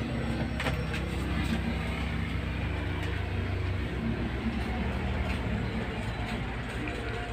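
A steady, low engine rumble, strongest in the first four seconds.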